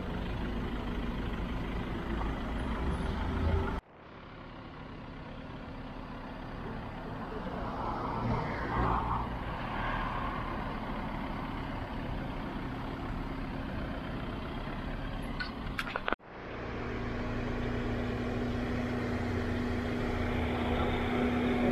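Steady city road traffic with vehicle engines running, heard from the pavement beside the street. The sound breaks off abruptly twice and builds back up. A steady low engine hum grows stronger near the end.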